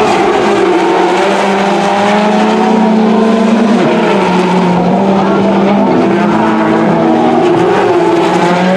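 Two Audi S1 rallycross Supercars' turbocharged four-cylinder engines running hard at race pace, a continuous layered drone whose pitch falls about four seconds in and then climbs again as they brake and accelerate through the corners.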